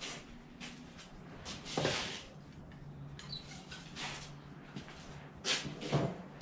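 Scattered light knocks, clinks and rustles of handling in a blacksmith's shop as a hot axe blank is laid on the anvil, over a faint low steady hum; no hammer blows.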